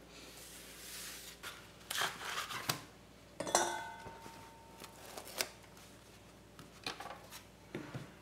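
Baking paper crinkling and rustling as it is peeled open from a chilled block of cookie dough, in several separate bursts. Light knocks come in between as the dough block is handled and set down on a stainless steel worktop.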